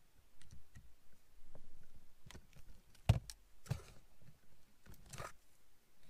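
Small plastic clicks and handling noise as a new blade fuse is fitted into a car's interior fuse box with a plastic fuse puller, with one sharp click about three seconds in and a few short scraping sounds.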